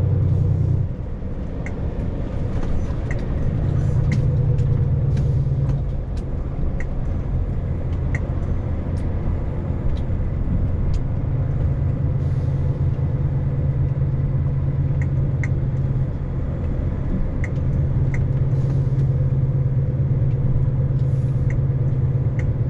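Vehicle engine and road noise heard from inside the cab while driving, a steady low drone that changes pitch a few times.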